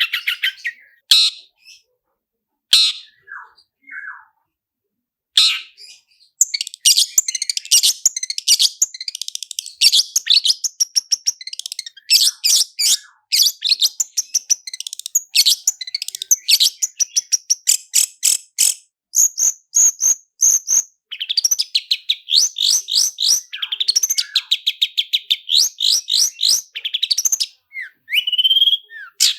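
Long-tailed shrike (cendet) singing: a few scattered sharp notes, then long, fast rolling trills of rapidly repeated notes. A held high whistle comes about two-thirds of the way through, and a rising slur near the end.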